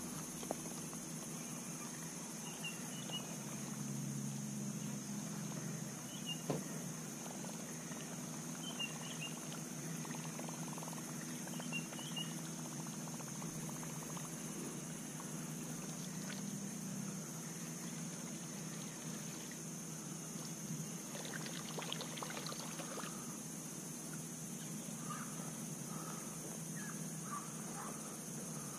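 Lakeside ambience: a steady high-pitched insect drone over a low, steady wash, with a few short chirps in the first half and a brief patch of clicks about two thirds of the way through.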